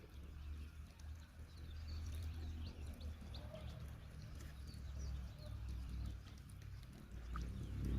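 Small birds chirping in scattered short calls over a steady low rumble.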